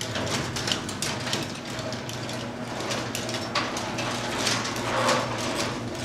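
LiftMaster garage door opener switching on suddenly and running, a steady motor hum under an irregular rattle and clatter from the drive and the door moving along its tracks.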